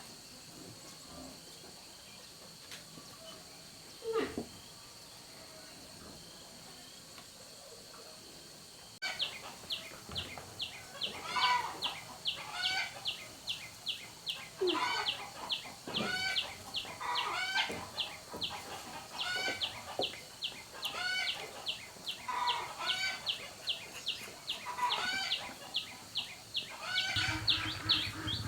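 Quiet background with a steady high-pitched tone. About a third of the way in, birds start chirping: quick repeated high chirps a few times a second, mixed with short curved whistled calls. A low hum comes in near the end.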